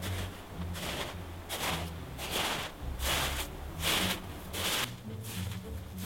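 Footsteps crunching in snow at a steady walking pace, about one step every three-quarters of a second, over a low rumble.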